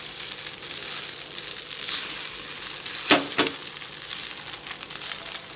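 Soaked beaten rice (aval) sizzling as it is stir-fried in a nonstick kadai, a steady sizzle with the rasp of the spatula turning it. Two sharp clicks about three seconds in.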